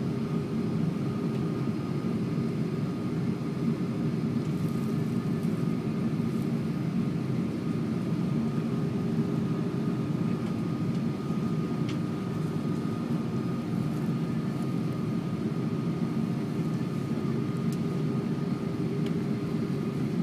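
Steady cabin noise inside an Airbus A330-300 while it taxis: an even low rumble from the jet engines at taxi power, with a thin, steady high whine over it.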